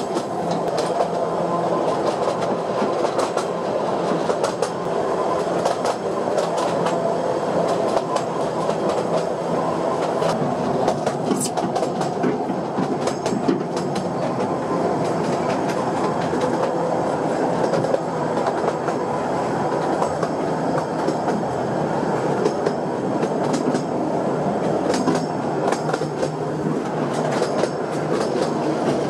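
VerticAlp Emosson narrow-gauge train running along its track, heard from an open-sided passenger car: a steady rumble of wheels on rail with scattered clicks and clacks.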